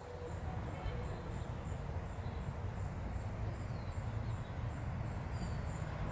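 An insect chirping at a high pitch in a steady rhythm, about three chirps a second, over a low rumbling noise, with a few faint short bird calls.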